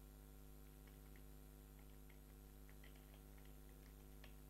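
Faint, irregular clicks of computer keyboard keys as an email address is typed, over a steady electrical mains hum.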